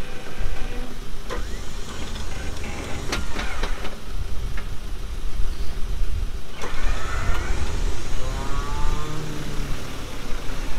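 Four-wheel-drive vehicle's engine running, with a steady low rumble and several sharp knocks or clicks.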